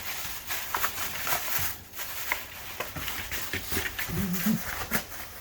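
Dog tearing and crinkling gift packaging with its teeth: irregular ripping and rustling. A short low vocal sound comes about four seconds in.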